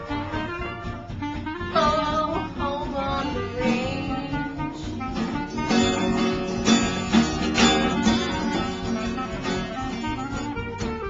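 Steel-string acoustic guitar strummed in a steady rhythm, with a wordless melody line carried over it.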